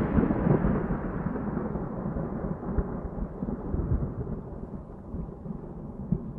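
Thunder rumbling and slowly dying away, its higher part fading first, with a few low swells in the rumble as it trails off.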